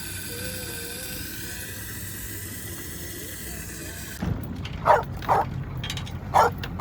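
A steady hiss, then about four seconds in a dog barking in a few short, loud barks.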